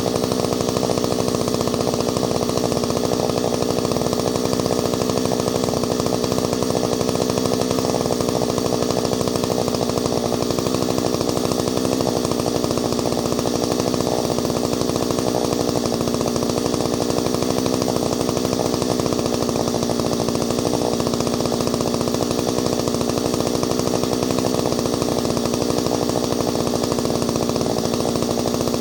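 Ported Solo 670 two-stroke chainsaw running at a steady, unchanging engine speed.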